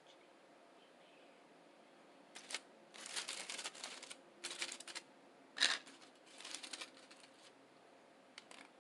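Close-miked eating sounds as a breakfast burrito is handled and eaten: a run of short, crisp crackling bursts over a few seconds, the loudest a little past the middle, then two small ones near the end.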